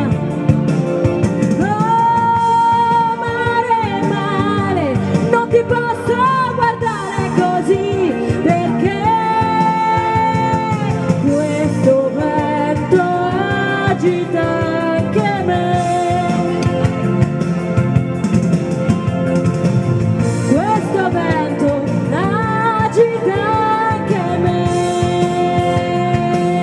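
A woman singing into a handheld microphone over a backing track, holding long notes that slide between pitches.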